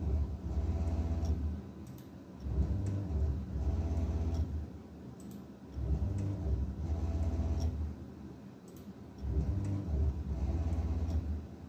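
Closed-loop NEMA 34 stepper motors driving the CNC milling machine's axes in repeated rapid moves. Four runs of about two seconds each carry a low hum, a faint whine and light ticks, with short quieter pauses between the moves.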